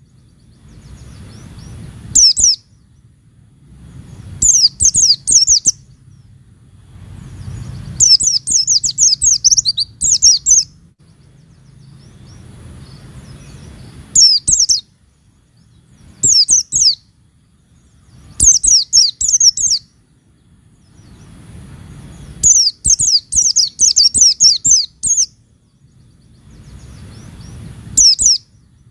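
Pleci (white-eye) singing in repeated bursts of rapid, high, downward-sweeping chirps, each burst from under a second to about three seconds long, with a low background rumble in the gaps.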